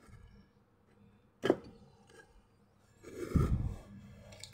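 Handling noise from a hand-held phone camera: a sharp click about a second and a half in, then a low, muffled rumble near the end.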